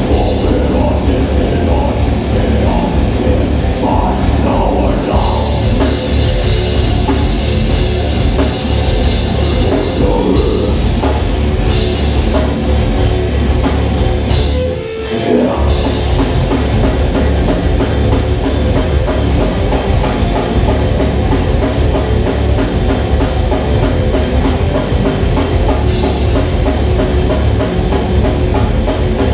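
Heavy metal band playing live: distorted electric guitar, bass guitar and a pounding drum kit, loud and dense, with a short break about halfway through before the band comes back in.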